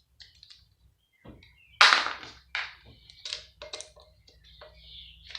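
A loud metal clank about two seconds in, followed by several lighter knocks and clinks as the pump's metal parts and bolts are handled.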